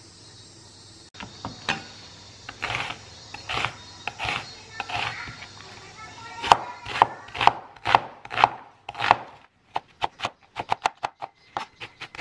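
Chef's knife chopping a red onion on a bamboo cutting board: a few slow, separate knife strokes at first, then steady cuts about two a second, turning into quicker chopping of three or four strokes a second near the end.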